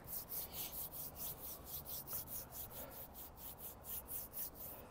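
Palms rubbed briskly together, a dry swishing at about five strokes a second that stops abruptly at the end.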